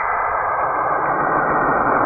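Saturn's space sound: radio emissions made audible as a steady, dense rushing noise, which spreads lower in pitch about a second in.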